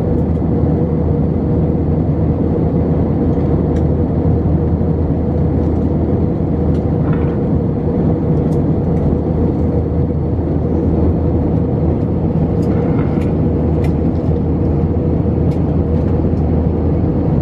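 Steady cabin noise of an Airbus A320 climbing after takeoff, heard at a window seat over the wing: a deep engine drone and rushing airflow with a steady hum running through it, and a few faint ticks.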